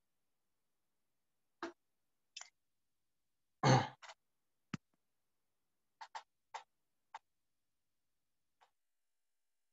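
Dead-silent, gated video-call audio broken by a scattering of short faint clicks. A louder, brief rush of noise comes a little under four seconds in.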